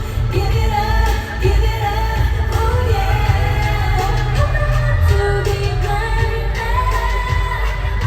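Girl group's live pop vocals over a backing track with a heavy bass beat, played through a large arena sound system.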